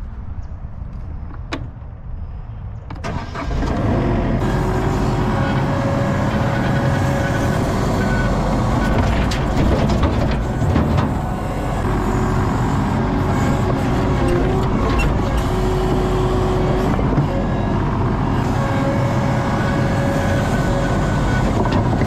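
ASV RT-40 compact track loader's diesel engine running low, then throttled up about three seconds in and running hard and steady as the machine drives, heard from inside the cab.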